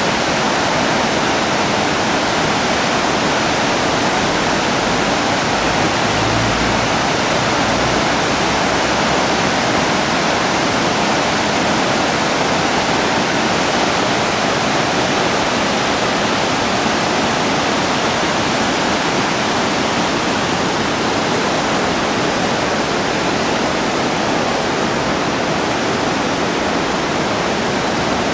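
The Ardèche river's water rushing, a loud, steady, unbroken rush.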